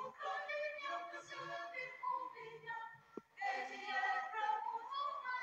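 Voices singing a choir-like song. It breaks off briefly with a click about three seconds in, then goes on.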